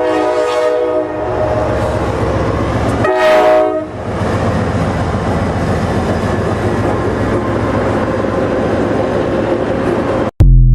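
Diesel locomotive's Nathan K3LA three-chime air horn sounding two short blasts, the second about three seconds in and the loudest, over the steady rumble of the running train. Near the end the sound cuts off abruptly, and another brief horn chord follows.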